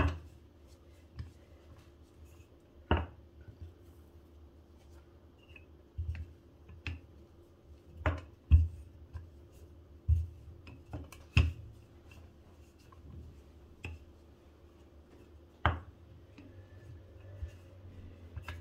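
Wooden rolling pin rolling chapati dough thin on a granite countertop: a low rolling rumble with sharp knocks at irregular intervals as the pin comes down on the stone.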